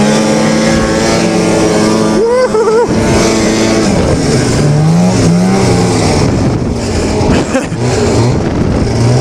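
Yamaha Enticer snowmobile's two-stroke engine revving as the sled is ridden, its pitch holding high at first, then dropping and rising again in several throttle swells.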